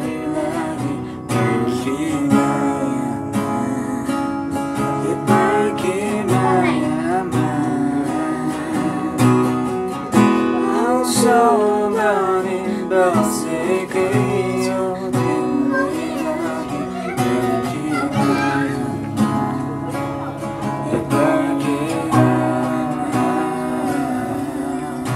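Background music: strummed acoustic guitar with a melody that wavers and bends in pitch, likely a singing voice.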